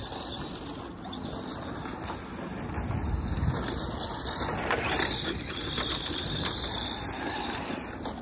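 ARRMA Mojave 4S RC truck's brushless electric motor and geared drivetrain whining as it is driven and slid across loose dirt, with a higher steady whine in the second half.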